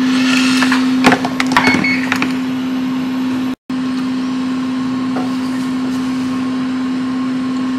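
Steady whirring hum of a small electric fan motor on a repair bench, with one constant low tone, and a few light tool clicks and scrapes in the first two seconds. The sound cuts out for an instant a little over three and a half seconds in.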